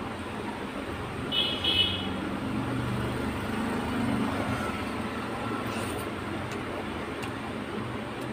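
Steady road traffic noise, with a vehicle horn tooting briefly twice about a second and a half in.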